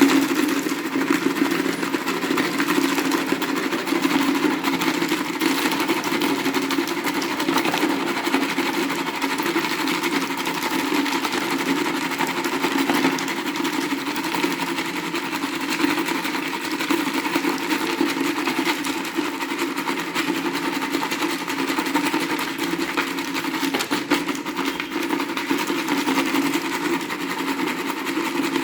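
Tortoise-shaped baby rattle toy giving a rapid, continuous, even rattle with a steady hum underneath.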